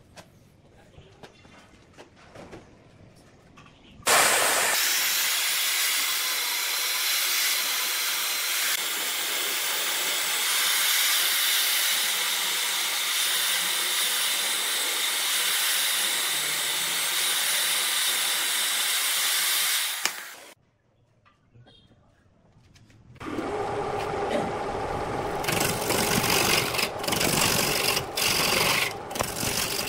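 Chainsaw cutting steadily into a bark-covered log held on a lathe, then cutting off abruptly. After a brief pause, the lathe spins the wooden blank while a hand-held turning tool scrapes and cuts it, with scattered sharp clicks.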